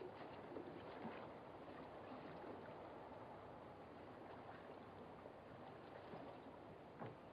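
Near silence: a faint steady hiss, with a few faint knocks near the end, footsteps on wooden stairs.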